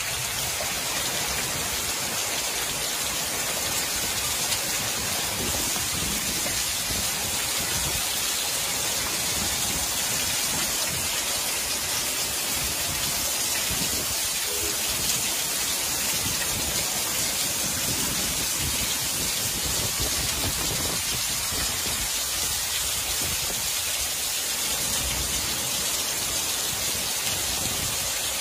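Heavy rain mixed with hail pouring down in a thunderstorm, a steady dense hiss that does not let up.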